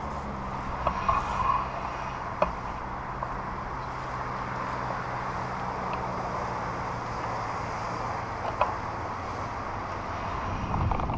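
Muffled brushing and rustling of leaves against a pole-mounted GoPro's housing, with a few sharp taps as twigs strike it. A steady low hum runs underneath and fades out about nine seconds in.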